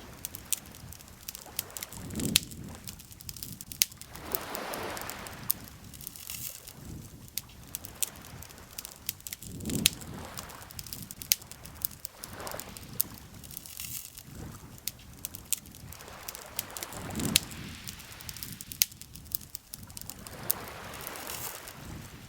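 Wood campfire crackling, with frequent sharp pops and snaps. Soft swells of outdoor noise rise and fall every few seconds underneath.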